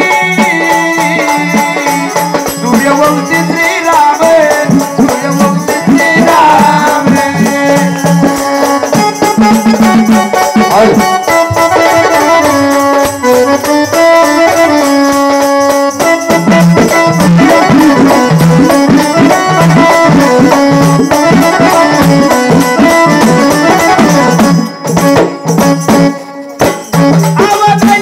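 Traditional Marathi jagran–gondhal folk music: sustained melodic instruments over jingling, rattling hand percussion keeping a steady beat, with a brief dip in loudness near the end.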